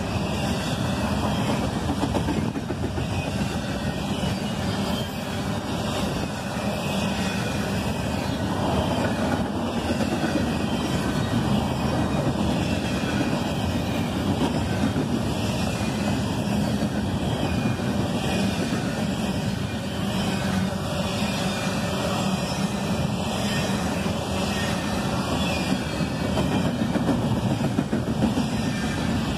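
Double-stack intermodal container freight train passing, its steel wheels rolling steadily on the rails.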